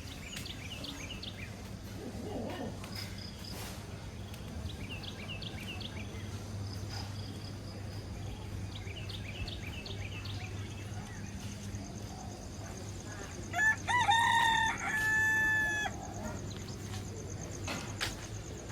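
A rooster crows once, a long pitched call of about two and a half seconds that rises and then holds. Before it, a small bird gives three short runs of chirps. A steady low hum and hiss of background noise runs throughout.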